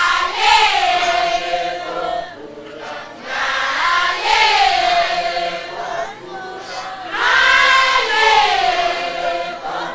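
Congregation of women chanting a sung response in unison, in three drawn-out phrases, each sliding down in pitch to a held note.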